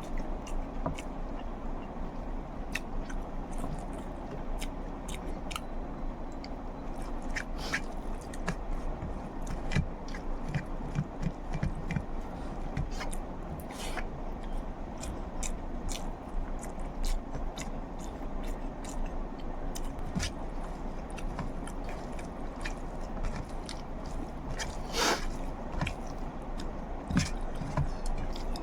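Close-miked eating of egg curry: steady chewing with frequent small wet mouth clicks and smacks.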